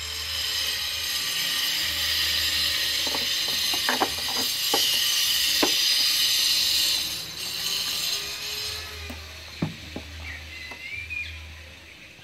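A car tail-lamp housing, bulb socket and wiring being handled and fitted. A loud hiss runs for most of the first nine seconds, with a scatter of sharp clicks and taps from the plastic parts, and a few more clicks near the end.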